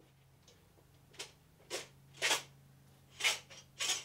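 A long threaded rod being pulled out through the stacked Nissan Leaf lithium-ion cell modules, scraping in about five short strokes a half-second or so apart, starting about a second in.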